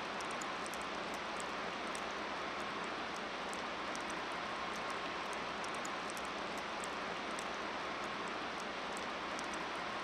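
Steady, even hiss of outdoor background noise, with faint scattered high-pitched ticks.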